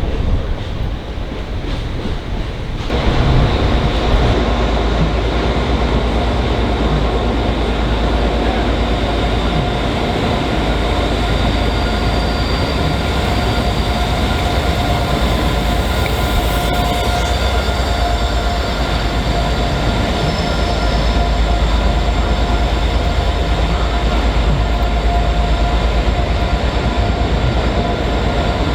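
A train running on the rails: a steady rumble of wheels with a thin, steady whine above it, coming in abruptly about three seconds in.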